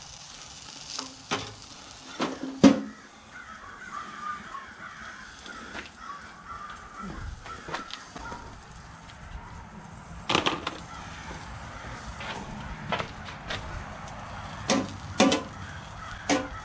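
Sharp metal clanks and knocks from a small Char-Broil portable charcoal grill's lid being handled, the loudest a few seconds in, with crows cawing now and then.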